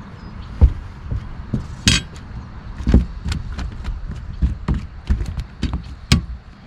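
A string of irregular knocks and light clinks, about fifteen in all, the loudest about half a second, two seconds and six seconds in: gear or a fish being handled on a boat.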